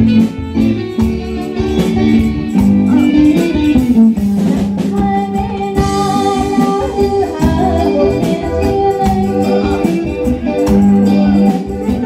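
Live band playing a pop-rock song: drums keeping a steady beat under electric guitar and keyboard, with a woman's voice singing the melody over it in the second half.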